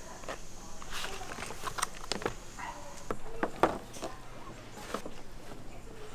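Irregular light clicks and knocks of hands handling cut cucumber strips and a plastic basket on a steel counter, the loudest knock about three and a half seconds in.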